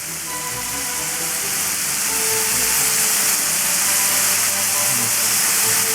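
Stir-fry ingredients sizzling in a hot frying pan: a steady, loud hiss. Light background music plays over it.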